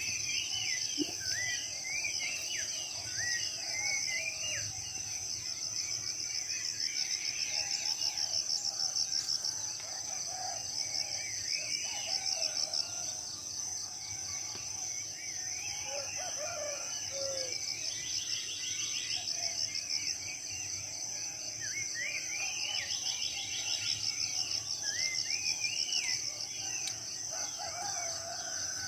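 Tropical forest dawn chorus: several birds calling with short rising and falling whistled notes, over a steady, high-pitched, rapidly pulsing insect drone.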